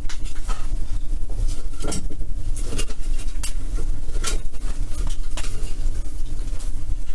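Boiler being fired up: a steady low rumble and hum, with scattered metallic clinks and knocks.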